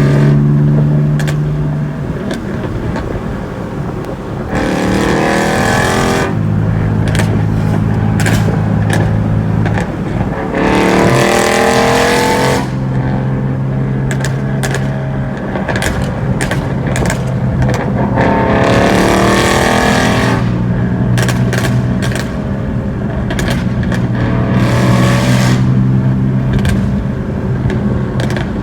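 2017 Ford Mustang GT's 5.0-litre V8 exhaust: the engine idles and is revved about four times, and each time the revs drop the exhaust pops and crackles in quick irregular bursts.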